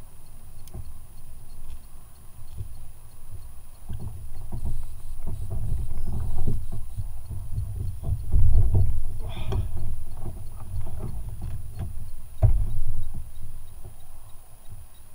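Water lapping and knocking against a kayak's hull, heard as an uneven low rumble through a camera mounted on the boat, with one sharp knock about twelve seconds in.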